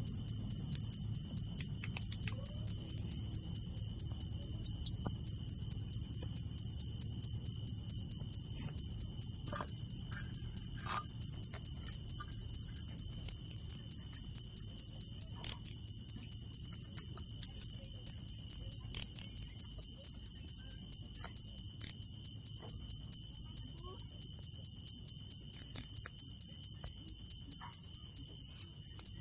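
A cricket chirping loud and high-pitched, at an even pace of about three chirps a second without a break.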